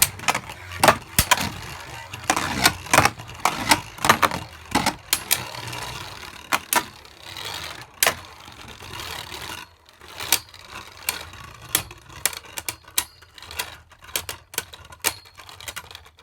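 Two Beyblade Burst spinning tops battling in a plastic stadium: rapid clacks as they collide, over the whirr of their spinning. The whirr fades about nine seconds in, leaving sparser clicks and knocks.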